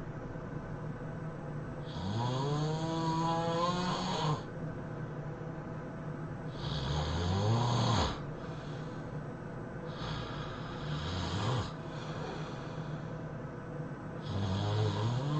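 A person snoring: four long, buzzing snores about four seconds apart, each sliding up in pitch as it starts.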